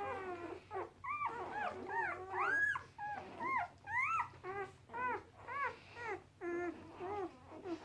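Newborn puppies, about a day and a half old, squeaking and whimpering: a steady run of short, high squeals that rise and fall in pitch, about two or three a second, sometimes overlapping.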